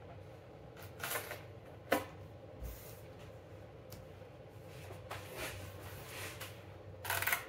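Handling noises from unpacking an air fryer: short rustles of packaging and cardboard, with a sharp knock about two seconds in and a louder burst of rustling near the end.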